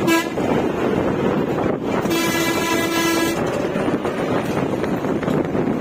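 Vehicle horn honking over the steady running noise of the bus on the road: a short toot right at the start, then one long honk of a little over a second about two seconds in.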